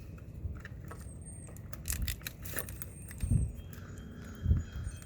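Small clicks and metallic clinks of wires and wire nuts being pushed into a light fixture's electrical box and its mounting plate being handled. Two dull low thumps come about three and four and a half seconds in.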